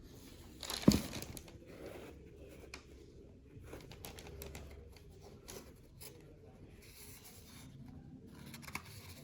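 Paper packaging rustling and crinkling as it is handled, with one sharp knock about a second in and scattered light clicks after it.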